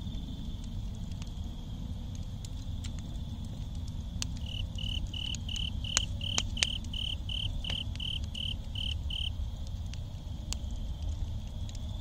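Campfire embers with small flames crackling, with a few sharp pops around the middle, over a steady low rumble. A cricket chirps in an even run of about three chirps a second for some five seconds mid-way, over a continuous high insect trill.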